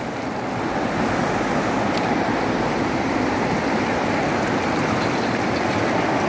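River rapids: fast water rushing over rocks, a steady, unbroken rush.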